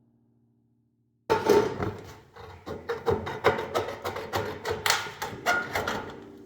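Thin sheet-metal trim being cut and handled with aviation tin snips: a quick, irregular run of sharp metallic snips, clicks and clanks starting abruptly about a second in.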